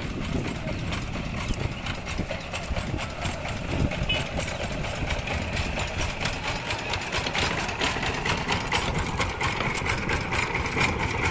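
Single-cylinder diesel engine of a two-wheel power tiller idling with a steady, rapid chugging.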